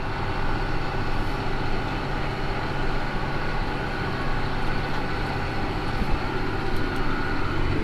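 Versatile 365 tractor's diesel engine running steadily with a low hum and a steady whine above it.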